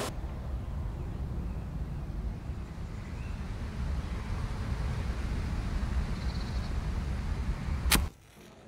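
Low, steady outdoor ambient rumble with a faint high call about three seconds in. Near the end comes a single sharp click, and then the sound drops abruptly to a much quieter room tone.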